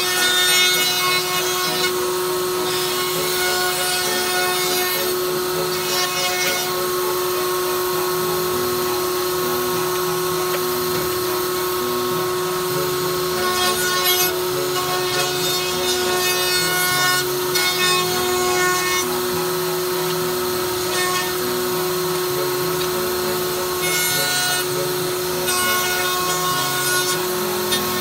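CNC gantry router milling solid wood: the spindle runs with a steady whine while the cutter chews through the timber, over shifting tones from the axis motors as the gantry moves.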